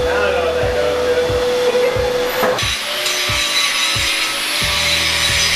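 Background music with a steady beat. About halfway through, an angle grinder grinding steel comes in: a steady whine with a dense hiss.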